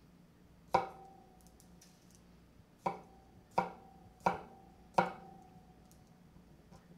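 Chef's knife cutting through fingerling potatoes onto a wooden cutting board: five sharp knocks, each with a short ring. The last four come in an even rhythm, about two-thirds of a second apart.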